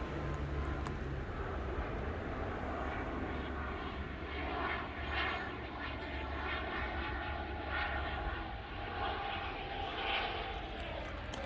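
A steady low engine drone that eases off about eight seconds in.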